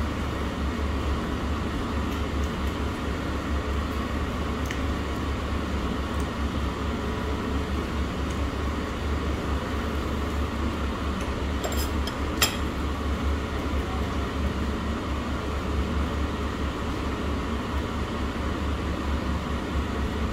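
Steady low mechanical hum with a faint steady tone above it, and a single sharp click about twelve seconds in.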